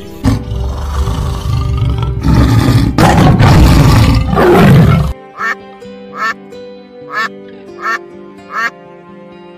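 A tiger's loud, rough roaring for about five seconds, cut off abruptly. Then a flamingo gives short honking calls, five in a row about three quarters of a second apart, over soft guitar music.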